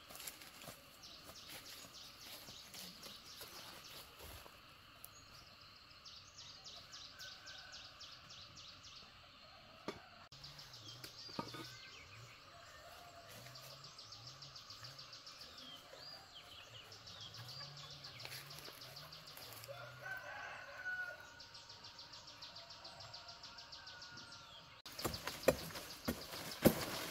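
Woodland ambience: birds calling and a high, rapidly pulsing trill that comes in repeated bursts of a few seconds each. Near the end, fan-palm fronds rustle loudly as they are pushed aside and handled.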